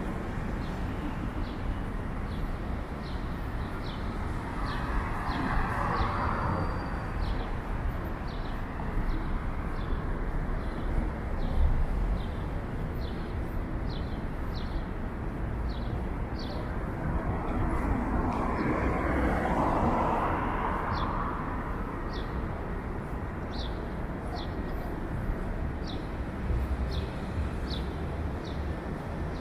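City street traffic: a steady rumble with two vehicles passing, one about five seconds in and another a little past the middle. Faint, regular high ticks run through it at about two a second.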